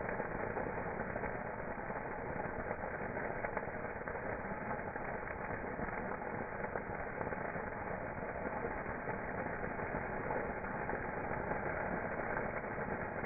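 Campfire burning: a steady rush of flames with small scattered crackles.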